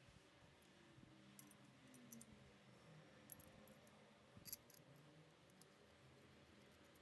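Near silence with a few faint, scattered clicks, the most distinct about three and four and a half seconds in.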